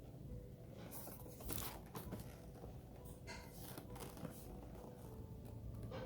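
Drone packaging being opened by hand: several short bursts of tearing and crinkling, mostly in the first two thirds.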